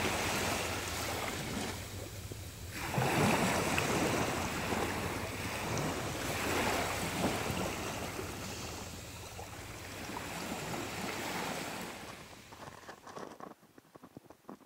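Small sea waves breaking and washing up a fine pebble beach, a surge every three to four seconds, with wind on the microphone. Near the end the surf drops away and a patter of small clicks is left.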